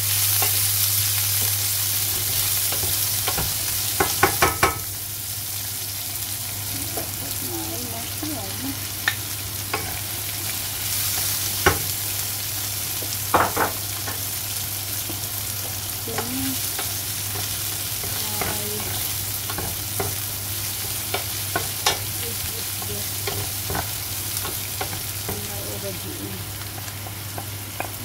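Vegetables sizzling in hot oil in a frying pan as a wooden spatula stirs them, with a steady low hum underneath. There is a quick run of clicks and knocks against the pan about four seconds in, and single knocks now and then after that.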